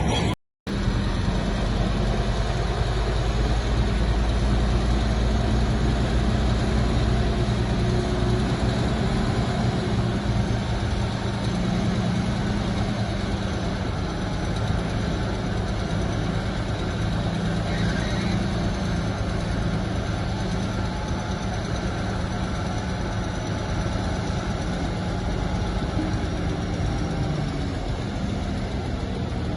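Heavy diesel engine of earthmoving machinery running steadily at an even, low pitch. The sound drops out for about half a second just after the start.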